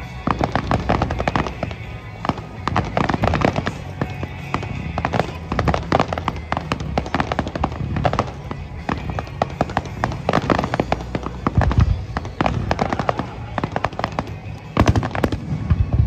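Fireworks display: a dense, rapid barrage of crackling and popping shell bursts, with deeper booms about twelve and fifteen seconds in, over the music the show is set to.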